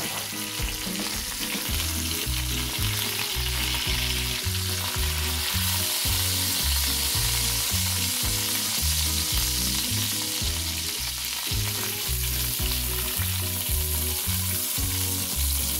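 Chicken leg quarters sizzling in hot fat in an enamelled cast-iron Dutch oven while tongs lift them out one by one. Background music with a low, stepping bass line plays underneath.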